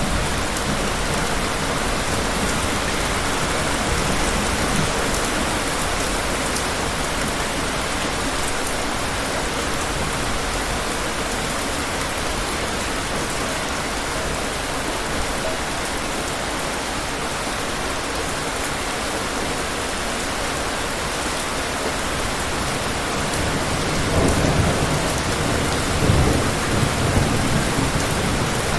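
Steady rain falling, with distant thunder; a low rumble of thunder swells up near the end.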